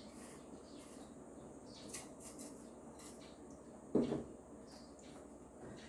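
A pot of congee simmering faintly, with a few small clicks and one brief louder knock about four seconds in.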